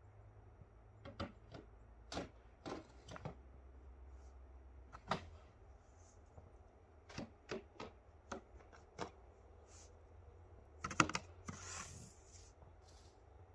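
Snow shovel scraping and knocking as snow is cleared off a backyard railroad track: scattered, uneven scrapes and taps, a quick flurry of knocks about eleven seconds in and a brief swish of snow just after.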